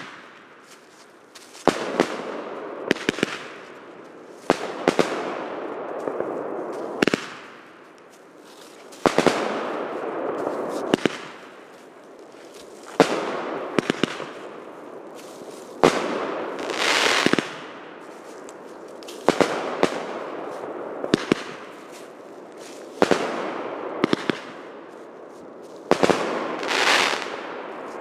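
Pyroco RocketFire Exclusive firework cake firing shot after shot, one every two to three seconds. Each shot is a sharp bang followed by a second or two of crackling that fades away.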